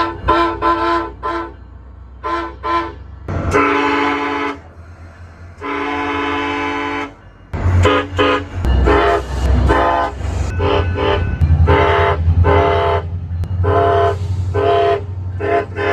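SunRail commuter train's air horn sounding a series of blasts: a quick run of short toots, two longer blasts around four and six seconds in, then many more short and medium blasts. The train's low rumble runs underneath the later blasts.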